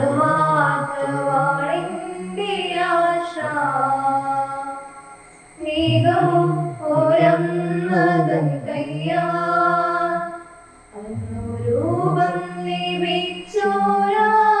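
Voices singing a hymn during communion. The phrases last a few seconds each, with brief breaks between them.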